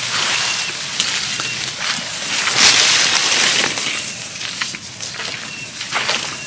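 Someone wading through shallow water and wet grass: swishing and sloshing steps, loudest about halfway through. A short, thin, high chirp recurs a few times in the background.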